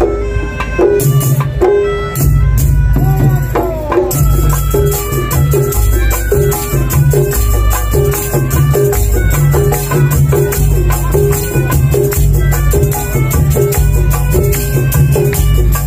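A Madurese daul (ul-daul) percussion ensemble playing loud parade music: regular deep drum beats under a repeating stepped melody. Steady jingling, rattling percussion fills in about four seconds in.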